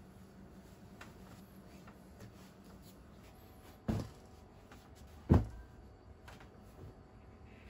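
Two soft thumps of pillows dropped onto a made bed, about a second and a half apart, the second louder.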